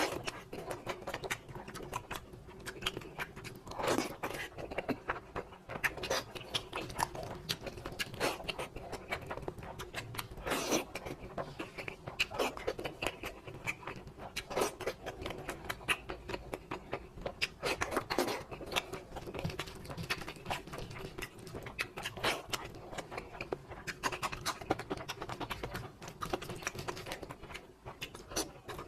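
Close-up food sounds: many irregular crunchy clicks and short scrapes, over a steady low hum.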